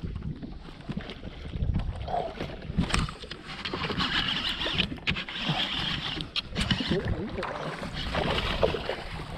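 Knocks, rubbing and rumble from a gloved hand and a baitcasting reel right against the microphone while a bass is reeled in and landed, with water hissing and splashing in bursts partway through.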